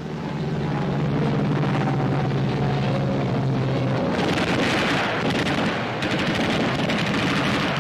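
Steady, low drone of aircraft engines on an old film soundtrack. About four seconds in it is joined by a louder, hissing roar.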